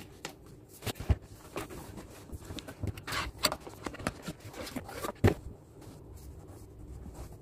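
Cardboard laptop box being handled and unboxed: the inner box sliding out of its sleeve and the lid opening, with papery scraping and rustling, a few soft knocks, and a fabric pouch rustling as the laptop is lifted out.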